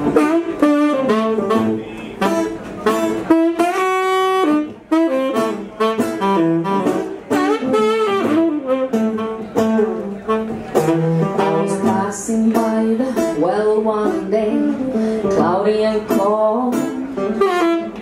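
Saxophone playing a winding melodic line over plucked guitar accompaniment, with one long held sax note about four seconds in.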